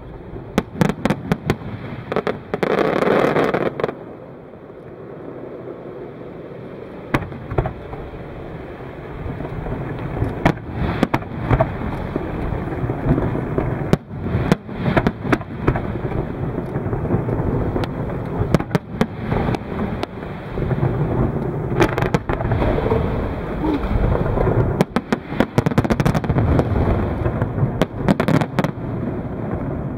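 Fireworks display: many sharp bangs and crackles from bursting shells over a continuous low rumble, with a louder stretch about three seconds in.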